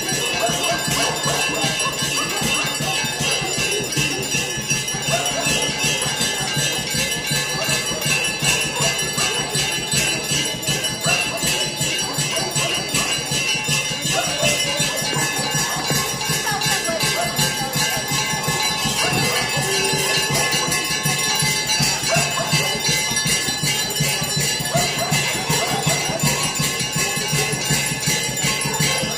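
Hindu temple bells rung rapidly and without pause during prayer, a continuous clangour of overlapping ringing tones, with voices underneath.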